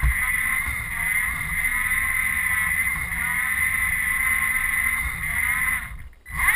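Small line-following robot's electric drive motors and gears whining steadily as it drives along the course, over a low rumble of its wheels on the floor, heard from a camera riding on the robot. The sound cuts out briefly about six seconds in, then comes back louder.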